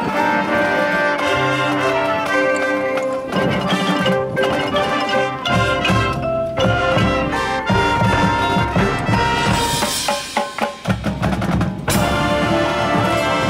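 Indoor percussion ensemble playing its show music: mallet keyboards and drums under a brass-like melody. About ten seconds in the sound thins to a hissy wash with choppy hits, then the whole ensemble comes back in at full volume.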